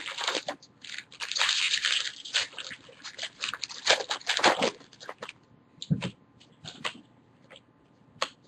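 Baseball card pack wrappers crinkling and cards being handled: a run of irregular crackling rustles, densest about a second in, then thinning out to scattered light crackles.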